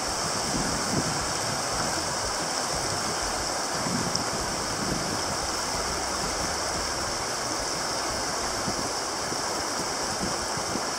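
Shallow, rocky river rapids rushing steadily.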